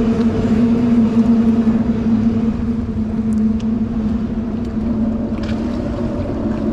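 A boat engine running at a steady speed, giving an even hum with a constant low tone.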